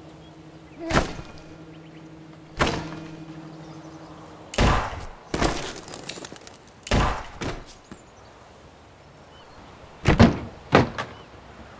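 Acoustic guitar being smashed repeatedly inside a camper van: a series of heavy crashing blows, irregularly spaced, with a longer pause before the last few. After the second blow a low tone from the strings keeps ringing for a few seconds.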